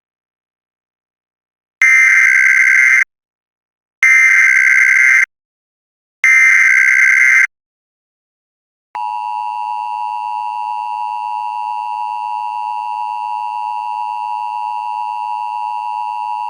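Emergency Alert System tones: three SAME header data bursts, each just over a second long and about a second apart, then the steady two-tone EAS attention signal (853 and 960 Hz) starting about nine seconds in.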